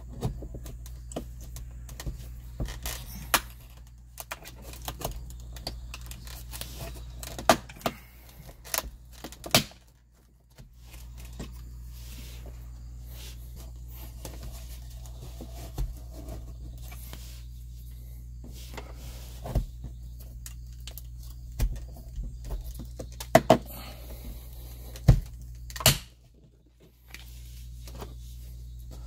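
A metal pry tool working behind the plastic housing of a Tesla Model 3's overhead dome light: scattered sharp clicks, taps and scrapes of metal on plastic as the housing's retaining clips are forced, with a few louder clicks near the end. A steady low hum sits underneath.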